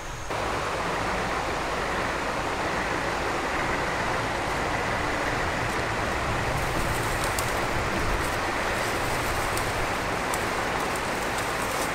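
Steady rushing of running water, like a stream, with a faint steady high tone over it and light ticks in the second half.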